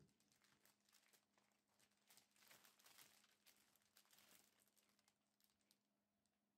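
Near silence, with faint, irregular crinkling of clear plastic bags being handled and filled. It is busiest from about two to four and a half seconds in.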